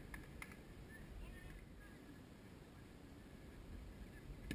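Quiet outdoor field ambience with a low wind rumble and faint distant voices, ending in a single sharp thump as a rubber kickball is kicked.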